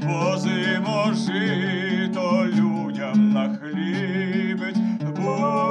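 A man singing a slow folk ballad with a wavering vibrato, accompanying himself on a bowl-backed lute with plucked low notes; near the end he holds one long sung note.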